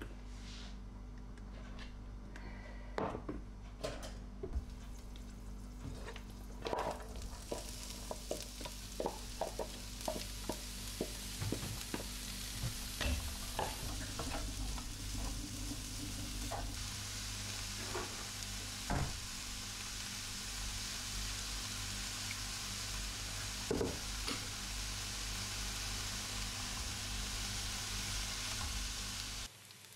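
Chopped onions frying in oil in a frying pan, sizzling steadily, with a wooden spatula clicking and scraping against the pan as they are stirred. The first few seconds hold only knocks and clatter; the sizzle comes in about seven seconds in and cuts off just before the end.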